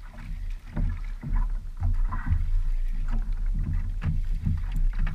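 Water lapping and slapping against a small wooden outrigger boat, with irregular knocks and a steady low rumble.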